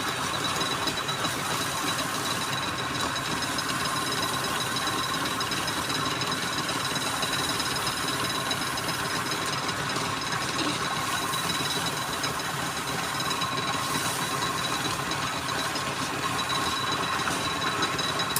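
Wood lathe running steadily, a constant machine noise with a steady high whine.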